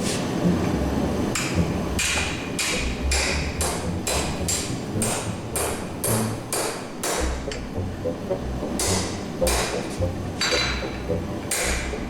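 Hand hammer striking 5160 spring steel on an anvil in a steady run of forging blows, about two to three a second, each with a short metallic ring. The blows pause for about a second and a half a little past the middle, then resume.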